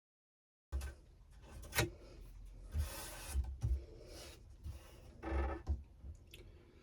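Hand scraping and rubbing at the painted plywood of an old wooden toolbox, in short irregular strokes, with a sharp knock near the start.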